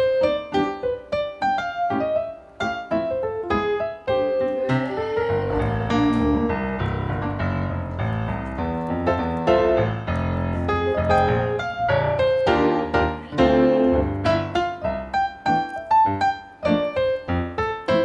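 Background music: a light piano tune of short, quick notes that swells into fuller, held chords with a bass line through the middle.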